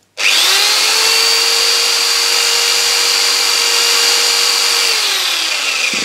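Electric drill spinning a universal motor rewired as an alternator, its field coil fed from a 6-volt battery. The drill starts abruptly and runs at a steady speed with a high whine for about five seconds, then is released and winds down, its pitch falling.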